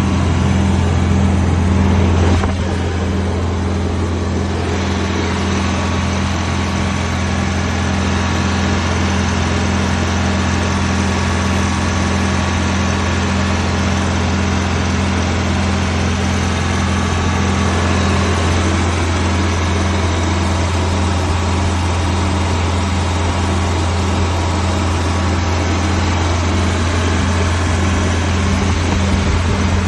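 Detroit Diesel 8V92 two-stroke V8 diesel in a Prevost bus running steadily at idle, a little louder for the first couple of seconds before settling.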